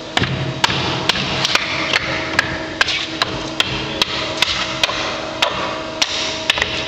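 Pallet dismantling machine at work: a steady machine hum with sharp knocks and cracks about two to three times a second, irregularly spaced, as pallet boards are worked apart.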